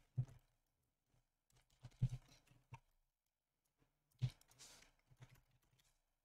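Faint computer keyboard keystrokes in three short clusters: right at the start, around two seconds in, and around four seconds in.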